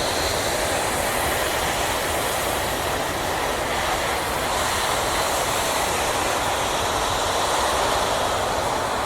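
Hot air balloon propane burner firing one long, continuous blast: a steady, loud rushing hiss of flame.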